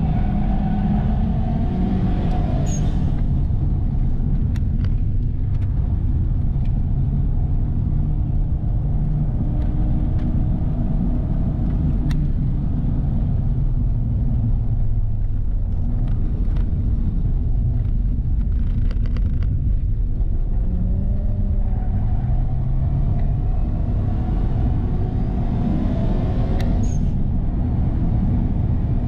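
Turbocharged 2.0-litre flat-four engine of a 2005 Subaru Legacy, heard from inside the cabin while being driven hard on a race track, with steady road and tyre noise underneath. The engine note sinks in pitch through the middle, then climbs again from about two-thirds of the way through as the car accelerates.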